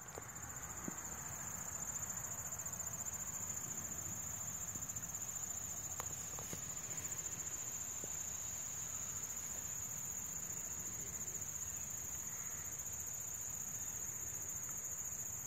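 A steady, high-pitched chorus of insects trilling without a break, with a couple of faint clicks about six seconds in.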